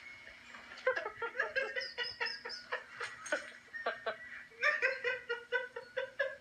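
A baby laughing in two bouts of quick, rhythmic, high-pitched giggles, the second starting past the middle.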